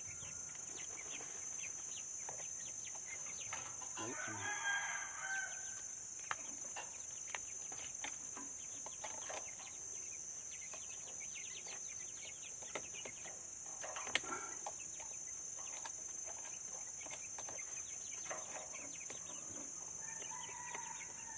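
A kampung (free-range village) rooster crows once about four seconds in, and a chicken clucks near the end, over a steady high insect drone. Small clicks come from wire being twisted with pliers on the coop netting.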